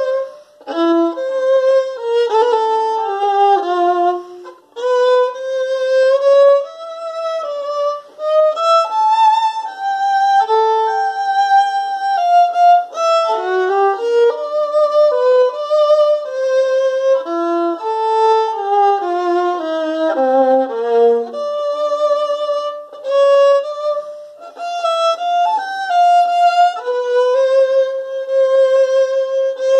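Solo violin playing a slow melodic study exercise, one line of held notes with vibrato, mostly in the lower and middle range, with brief breaks about five and eight seconds in.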